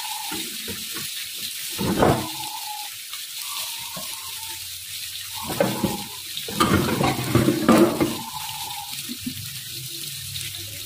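Tomato, red chilli and whole spices sizzling in oil in a wok over a gas flame: a steady hiss with louder, irregular bursts about two seconds in and again between about six and eight seconds.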